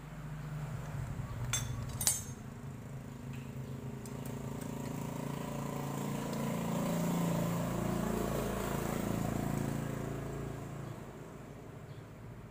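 Two sharp metal clinks of a hand wrench on the engine's cam sprocket bolts about two seconds in. Then a motor vehicle engine swells over several seconds and fades away.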